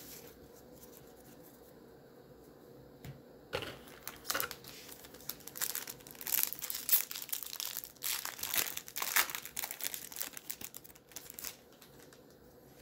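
A baseball card pack's wrapper being torn open and crinkled: a run of sharp crackles starting about three and a half seconds in and stopping shortly before the end.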